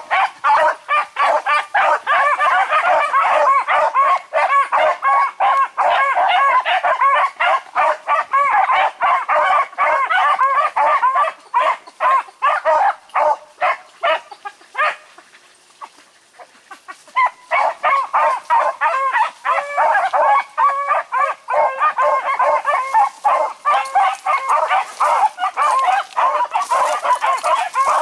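Beagles baying on the track, several voices overlapping in a near-continuous chorus as they follow a hot scent through the brush. The baying breaks off for about two seconds around the middle, then picks up again.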